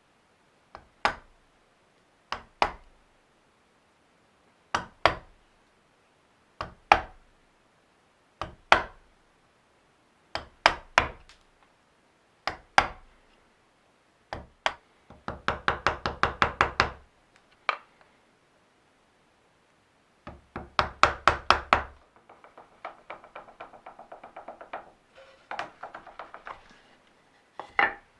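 Hand-tool blows on wood, in groups of two or three knocks about every two seconds, then two runs of quick, fast hammering. Near the end comes a quieter, fast, even series of strokes for a few seconds, and a single knock at the close.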